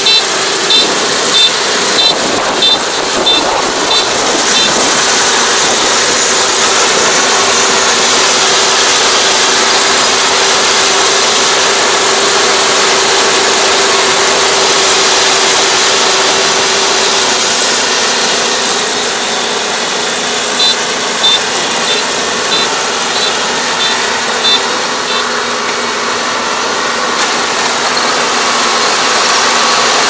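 Kubota ER470 combine harvester running steadily as it cuts rice, a loud constant machine noise. A high beeper sounds about twice a second for a few seconds at the start and again about twenty seconds in.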